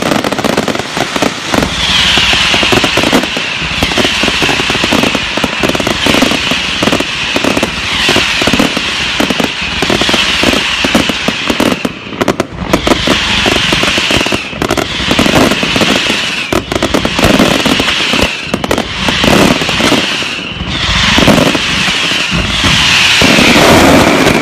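A fireworks display going off continuously: dense crackling and popping, with a hiss that comes back about every second and a half.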